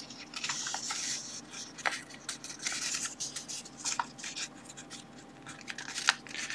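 Paper rustling as book pages are turned and rubbed apart by hand, with a few light snaps of paper, the clearest about two, four and six seconds in.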